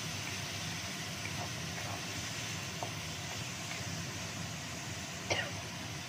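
Wooden spatula stirring quail eggs and petai in a wok over a gas burner: a steady hiss with a few light scrapes and taps. One sharper, louder sound comes about five seconds in.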